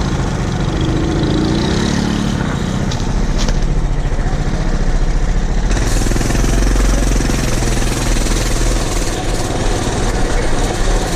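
Farm machinery engine running steadily. About six seconds in it turns suddenly louder and fuller.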